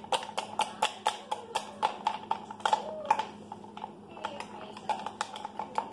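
A spoon clinking rapidly against a measuring cup while mashing chocolate pieces into milk, about four clinks a second, slowing and thinning about midway before picking up again.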